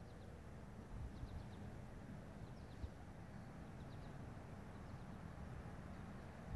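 Outdoor ambience: a low, uneven wind rumble on the microphone, with faint, brief bird chirps scattered through the first few seconds.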